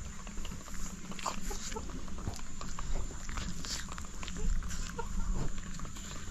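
Farm animals making short, irregular noises among scattered knocks and clicks.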